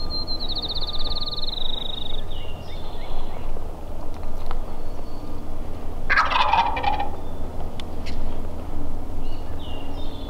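A wild turkey tom gobbles once, about six seconds in: a loud, rattling call that falls in pitch, over a steady low rumble.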